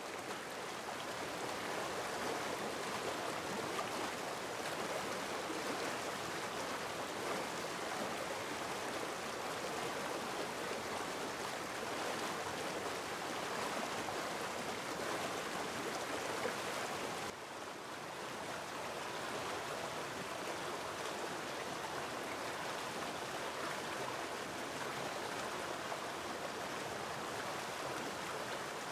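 Fast mountain stream rushing over rocks, a steady even rush of water; the level drops a little for a moment a little past halfway.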